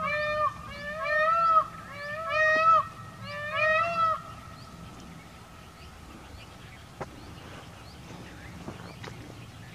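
Indian peafowl (peacock) calling: four quick groups of loud, short repeated notes in the first four seconds, each note rising and falling in pitch. After that only a quiet background with a few faint clicks.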